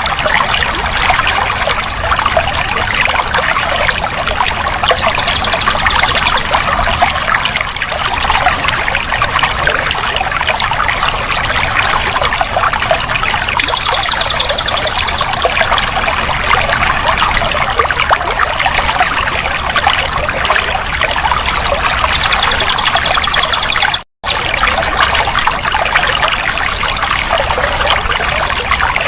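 Running water, trickling and pouring continuously. A short high-pitched trill comes in three times, roughly every eight or nine seconds, and the sound cuts out for an instant about four-fifths of the way through.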